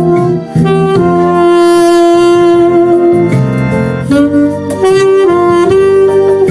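Alto saxophone playing a slow melody in long held notes, with short breaks between phrases, over a backing accompaniment.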